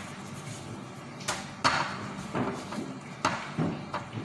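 Several short, sharp rustles and taps as hands in plastic gloves handle and roll thin pastry wrappers on a tray.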